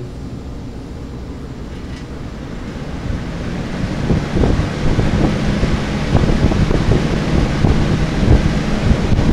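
Old Sears 20-inch metal-blade box fan spinning up on high: a rush of moving air that builds over the first few seconds and then blows gustily across the microphone, with a faint motor hum underneath. The owner says the motor has some problems.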